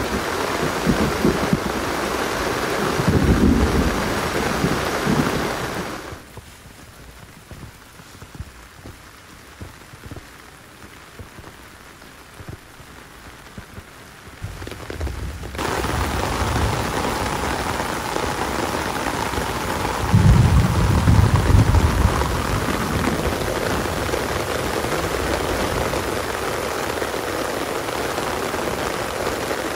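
Heavy rain falling steadily, with two low rumbles, one about three seconds in and a louder one about twenty seconds in. Partway through, the rain drops sharply quieter for about nine seconds, then returns at full strength.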